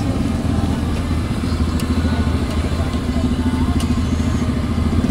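Liver frying on a large flat steel tawa, sizzling, with two or three sharp clinks of the metal spatula against the pan. Under it runs a steady low engine-like rumble, the loudest sound.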